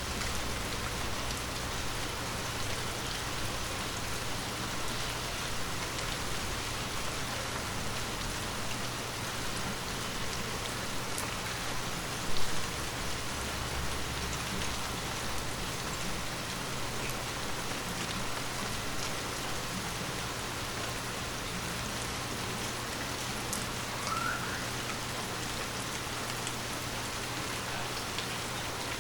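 Steady heavy rain falling, with scattered individual drops ticking over the even hiss of the downpour. A single louder thump stands out about twelve seconds in.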